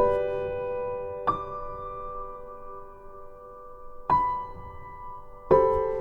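Background music: slow piano chords, each struck and left to ring, four times.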